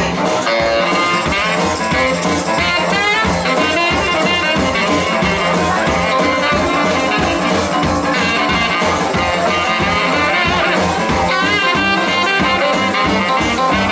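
Live blues band playing an instrumental passage, with horns, electric guitar and drum kit.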